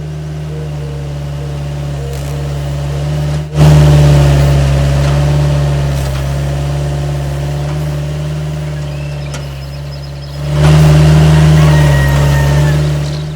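A vehicle engine running steadily. There is an abrupt break about three and a half seconds in, after which it is louder, and it grows louder again about ten and a half seconds in.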